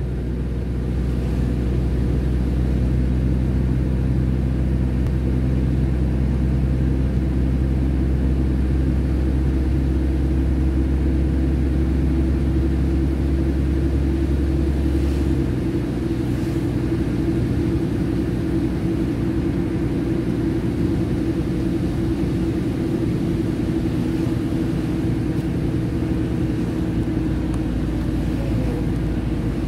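Inside a moving car on a slushy road: a steady low road and engine rumble, with the hiss of the tyres through slush. The deepest part of the rumble drops away about halfway through.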